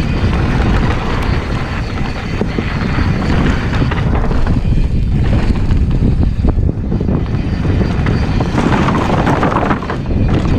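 Wind buffeting the on-bike camera's microphone over the rumble of a mountain bike's knobby tyres rolling down a dirt trail, with frequent small knocks and rattles from the bike over bumps.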